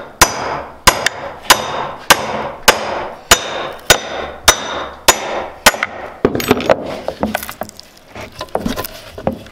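Steel hammer face striking the back of a second claw hammer about ten times, just under two blows a second, each with a metallic ring, driving its claw into the board under a nail head like a cat's paw. After about six seconds the blows stop and give way to lighter creaks and clicks as the embedded claw is levered back and forth in the wood.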